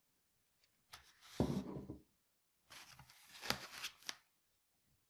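Handling noise of unpacking. The plastic mixer body is set down on a wooden table with a knock, then the stainless steel whisk attachment is pulled out of a polystyrene foam insert with scratchy rustling and a few sharp clicks.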